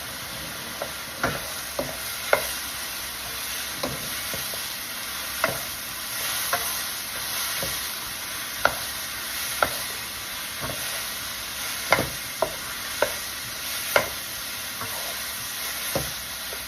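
Sliced mushrooms frying in hot oil on high heat, a steady sizzle, with a utensil stirring them and knocking against the pan at irregular moments, roughly once a second.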